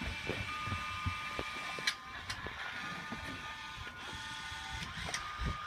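MiPosaur robot dinosaur toy's small electric motors whining as it drives on its wheels, the whine stopping and starting, with scattered light clicks and knocks.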